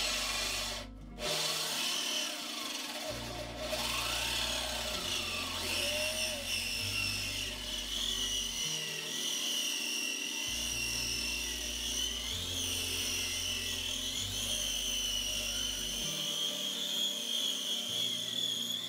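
Corded drill spinning a Lenox diamond hole saw that grinds steadily through the wall of an antique claw-foot tub, kept wet with water, with a steady high whine.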